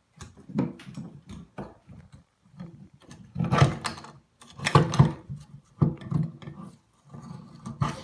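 Knocking and clattering as an old Moen kitchen faucet is worked loose and pulled free from the sink, with two louder knocks about three and a half and five seconds in.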